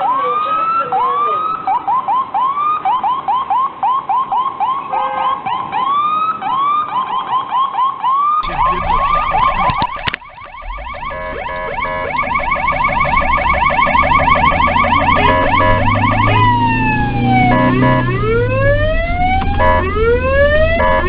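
Ambulance sirens: a yelp of short rising sweeps, two or three a second. About eight seconds in the sound cuts abruptly to another siren, a faster warble over a vehicle's engine rumble, which later turns into long rising and falling wails.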